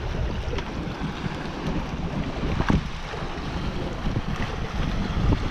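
Wind buffeting the microphone while water rushes and splashes past the hull and outrigger floats of a bamboo-and-pipe outrigger boat under way, with a few brief louder splashes.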